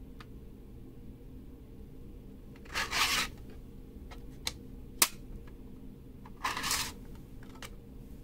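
Hard plastic parts of a 3D-printed maze being handled: two brief scraping rubs and a few light clicks as a flat lid is fitted on top, the sharpest click about five seconds in.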